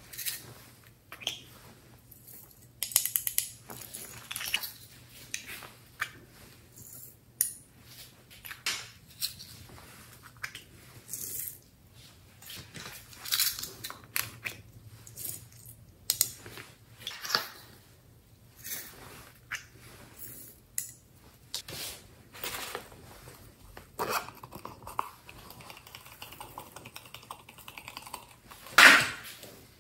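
Small plastic novelty glitter containers being handled, opened and shaken: a string of sharp plastic clicks, taps and rattles, with the loudest click near the end.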